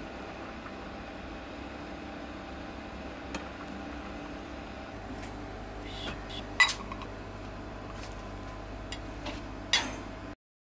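A metal ladle clinking against an aluminium saucepan and a small ceramic bowl while simmered food in broth is scooped out. A few light clinks come in the second half, the loudest about six and a half seconds in and another near the end, over a steady low hum.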